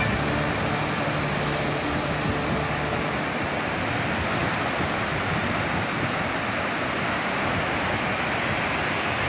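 Surf on a sandy beach: a steady rush of waves breaking and washing up the shore, with music fading out about two seconds in.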